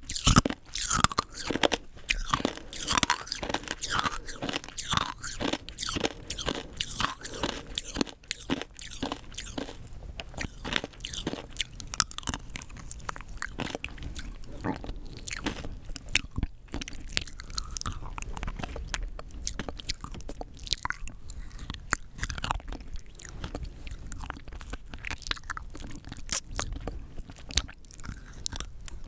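Rock candy being crunched and chewed close to the microphone: a dense run of sharp, irregular cracks and crunches as the hard sugar crystals break between the teeth, busiest in the first third.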